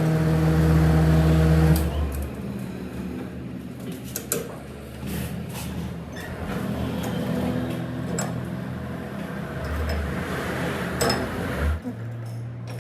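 A workshop machine's electric motor hums loudly, then runs on under a rougher mechanical noise with a few sharp metal clicks, about three times. Near the end a different steady hum takes over.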